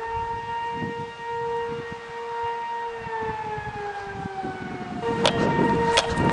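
Outdoor tornado warning siren sounding a steady wail, the alert for an approaching tornado. Its pitch sags slowly about three seconds in, then comes back louder at the original pitch about five seconds in, with sharp crackling knocks over it.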